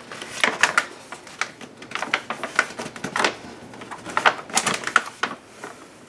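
Heavy-duty, appliance-grade metallic contact paper crinkling and crackling as its backing is released and the stiff film is handled and pressed down by hand. A busy, irregular run of sharp crackles with no steady rhythm.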